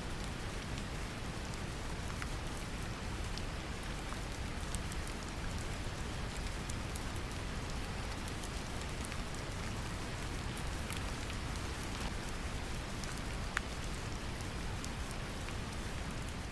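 Steady deep brown noise layered with rain: an even rushing hiss weighted to the low end, with scattered sharp drop ticks on top.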